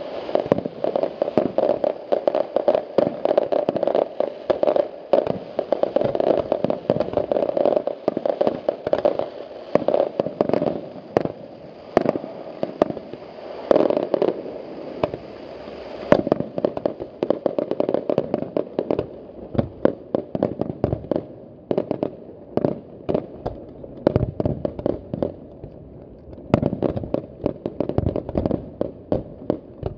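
Fireworks display: many aerial shells and low comet and fountain effects going off in rapid, overlapping bangs. The bangs come thickly for the first half, thin out to scattered single reports about two-thirds of the way through, and come thickly again near the end.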